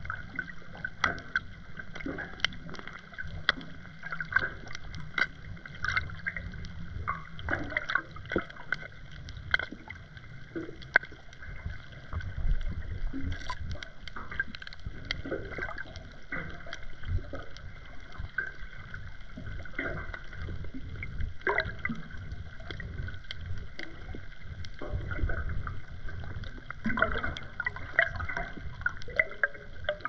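Underwater sound picked up by a GoPro in its housing below a pier: a low rumble of moving water with frequent irregular clicks and crackles.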